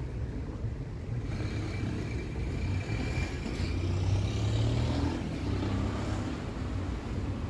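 Street traffic: a motor vehicle passes close by, growing to its loudest about four to five seconds in and then fading, with a thin high whine as it approaches, over a steady low rumble of traffic.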